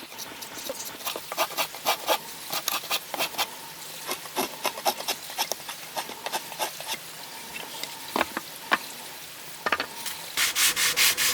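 Irregular light clicks and taps of hand work on wood, then, about ten seconds in, rhythmic strokes of sandpaper rubbed over wood, about two a second.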